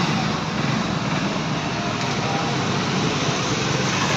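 Hero Splendor+ motorcycle's single-cylinder four-stroke engine idling steadily.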